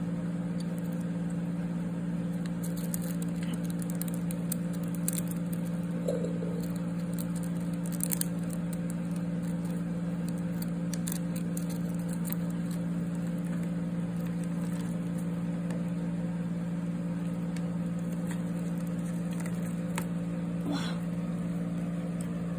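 Steady low machine hum at an unchanging pitch, with faint scratches and clicks from stag beetles' legs on bark and from the bark being handled, and a slightly louder knock shortly before the end.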